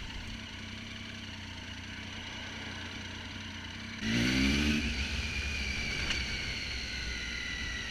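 Triumph Tiger 800 XRx's 800cc three-cylinder engine with an Arrow exhaust, heard on the move: a steady engine note with a high whine. About four seconds in the throttle opens briefly, and the whine rises and then slowly falls away.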